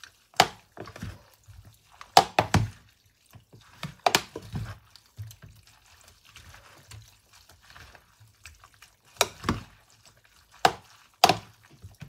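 Two plastic spoons tossing a dressed seafood and glass-noodle salad in a plastic bowl: irregular clacks of the spoons against the bowl, some in quick clusters, with quieter wet stirring between.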